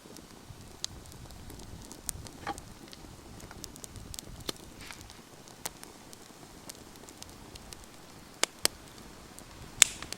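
Wood campfire crackling: irregular sharp pops and snaps over a soft steady hiss of burning, with a few louder pops about eight and a half seconds in and one loud snap near the end.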